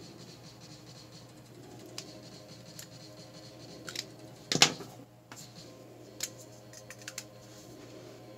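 Plastic marker pens being handled and set down on a drawing surface: a few light clicks and taps, with one louder clack about halfway through.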